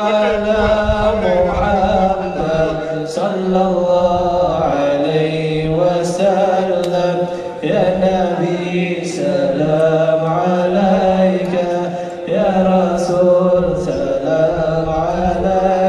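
Male chanting of an Arabic devotional salawat in praise of the Prophet, sung in long held notes that slide from pitch to pitch.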